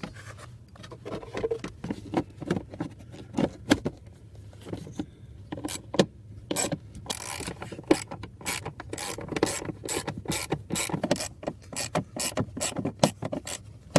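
Socket ratchet clicking as the new blower motor's 5/16 bolts are run in, in short back-and-forth strokes. The clicks are scattered at first and come in a quick, steady run from about halfway through.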